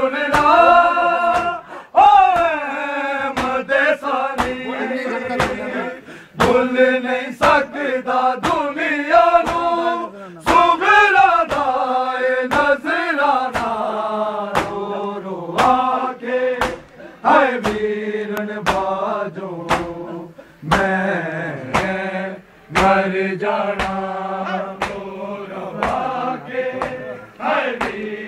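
Men chanting a Punjabi noha (lament), with rhythmic chest-beating (matam) slaps keeping time at roughly one a second.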